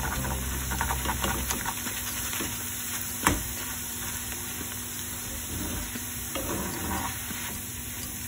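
Poha (flattened rice) deep-frying in hot oil: a steady sizzle, with the wire-mesh frying strainer scraping and stirring in the pan and one sharp click about three seconds in.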